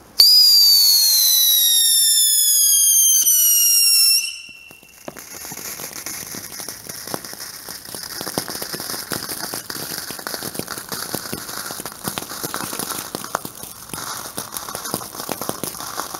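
Borgonovo Fischio-luce pyrotechnic fountain: a loud whistle starts suddenly, falls steadily in pitch for about four seconds and cuts off. After a brief pause the fountain sprays sparks with a steady dense crackle and hiss.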